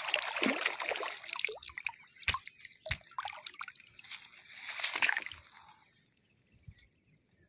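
Shallow river water splashing, sloshing and dripping in irregular short bursts with sharp little clicks, dying away about five and a half seconds in.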